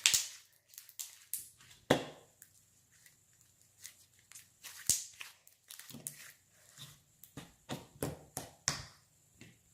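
Hands squishing, stretching and folding a glittery slime, giving irregular sticky clicks and squelchy pops, several a second, with the loudest at the start and about two and five seconds in.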